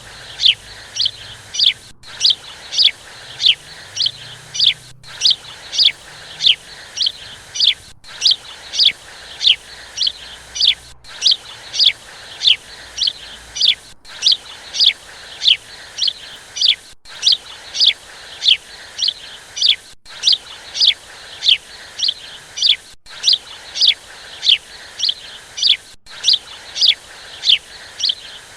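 High bird chirps, each a quick falling note, repeating about twice a second in an even, unchanging rhythm, broken by a brief dropout every three seconds.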